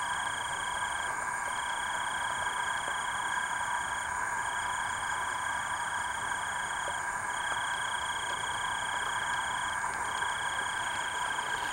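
Night chorus of calling insects and frogs from the marsh: several steady high-pitched trills at different pitches, one of them coming in long pulses with short breaks about every two seconds.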